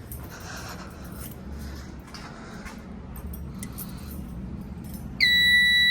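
Faint handling clicks and rustling, then near the end a fire alarm control panel's piezo buzzer starts a steady, high, loud beep as the panel is being reset.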